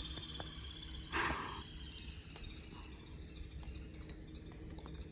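Quiet forest ambience with a faint, high insect buzz that fades over the first couple of seconds, and a brief soft rustle about a second in.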